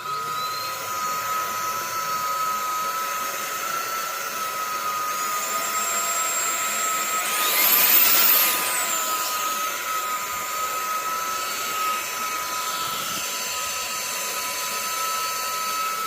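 Cordless stick vacuum cleaner with a brushless (BLDC) motor running with a steady high whine. About eight seconds in, a high whistle rises sharply and falls back, and the sound briefly gets louder.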